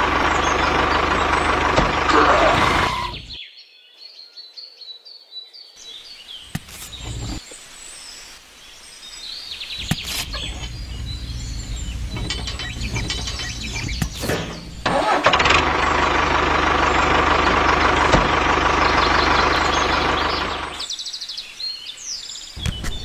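Tractor engine running steadily; it stops about three seconds in and comes back for about five seconds later on, with scattered clicks and knocks in the quieter stretch between.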